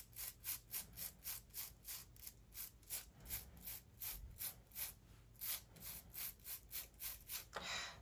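Rapid back-and-forth scrubbing, about four strokes a second, working at something stuck that is slow to come off.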